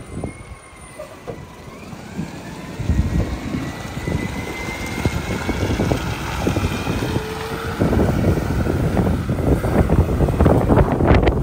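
Mack MRU rear-loader garbage truck pulling away and accelerating. Its engine grows louder about three seconds in, with a faint whine that slowly rises in pitch. In the last few seconds wind buffets the microphone.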